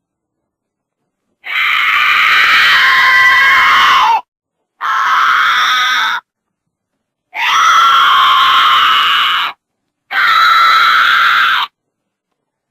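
Four loud, drawn-out goat screams, each about one and a half to two and a half seconds long, separated by dead silence as edited-together clips.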